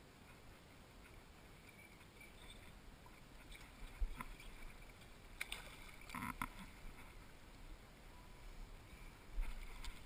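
Faint splashing and sloshing of river water close to the microphone, with a few sharp knocks and clicks. The loudest knock comes about four seconds in, a cluster of splashes around six seconds, and another knock near the end.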